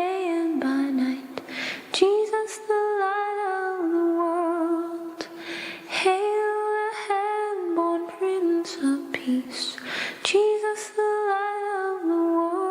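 A woman's voice humming or singing the slow hymn melody without words, in long held notes with short breaks between phrases.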